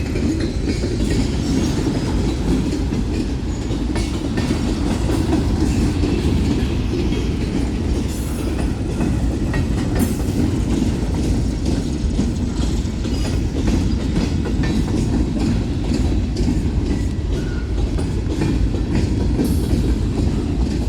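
Cars of a Union Pacific mixed freight train rolling past in a steady rumble, with occasional sharper clacks of wheels over the rails.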